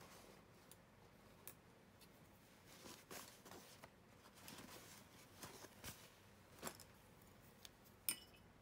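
Near silence, with faint scratchy strokes of a small paintbrush on watercolour paper and one sharp little click near the end.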